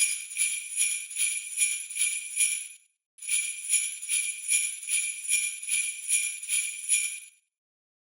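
Japanese railroad crossing warning bell ringing in quick, evenly spaced high metallic strikes, nearly three a second. It breaks off for a moment about three seconds in, rings again, then stops about a second before the end.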